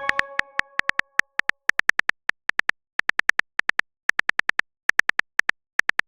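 Smartphone keyboard typing sound effect: a quick, uneven run of short high ticks, one per keystroke, as a text message is typed. The tail of a chat-notification chime fades out in the first half-second.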